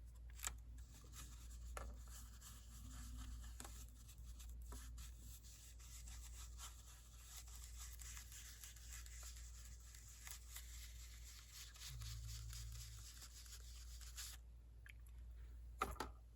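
Faint rubbing and handling of paper and craft supplies on a desk, with a few light taps, over a low steady hum; the rubbing drops away near the end.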